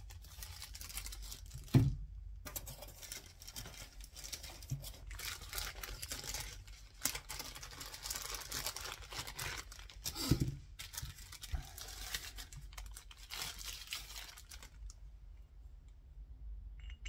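Objects being moved around a workbench: crinkling, rustling handling noise with two sharp knocks, about two seconds in and about ten seconds in, dying down shortly before the end.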